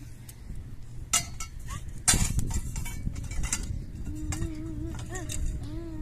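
Tent-frame poles knocking and clinking against each other as they are handled and sorted, in a few separate sharp clanks.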